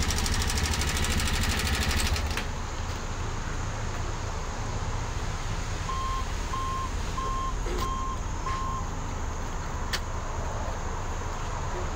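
Vehicle engine running with a low rumble that drops in level about two seconds in. Midway, five short, evenly spaced electronic beeps sound, like a vehicle's reversing or warning alarm, with a few sharp clicks around them.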